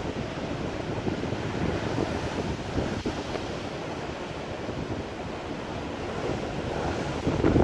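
Strong wind buffeting the microphone over the steady roar of breaking surf, with a louder surge just before the end.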